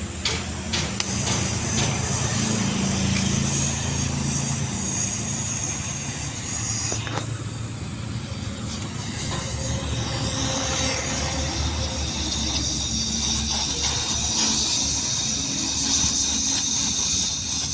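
Gas welding torch flame burning with a steady hiss as a patch is welded onto a steel diesel tank, over a low steady hum.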